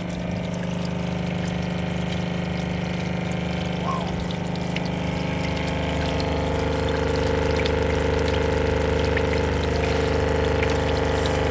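12-volt camper diaphragm water pump, rigged as a jet ski bilge pump, running steadily with a hum while it pumps bilge water out of the hull, with water spilling from the outlet. About halfway through the hum grows a little louder and a mid-pitched tone in it strengthens.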